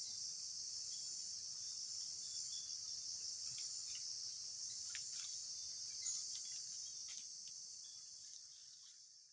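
Steady high-pitched insect chorus, fading out near the end.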